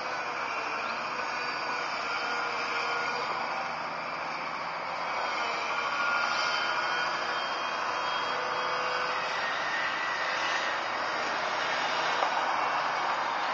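New Holland E215 crawler excavator's diesel engine and hydraulics working under load as it swings and dumps a bucket of soil. It is a steady machine noise with wavering whining tones, and it grows louder about five seconds in.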